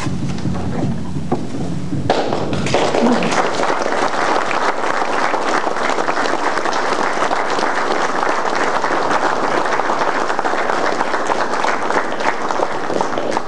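A room full of people applauding: dense, steady clapping that starts suddenly about two seconds in and cuts off abruptly near the end. A low steady hum comes before it.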